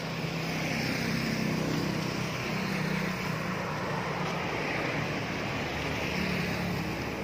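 A motor vehicle's engine running with a steady low hum, its noise swelling and then easing as it passes.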